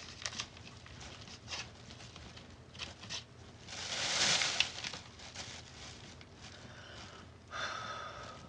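Quiet handling noise: light rustling and scattered small clicks, with a longer soft hiss lasting about a second, about four seconds in.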